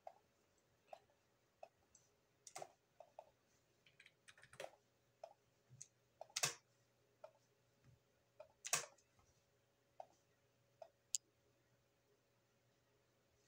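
Computer mouse clicking at an uneven pace, a dozen or so sharp clicks with a few much louder ones among them.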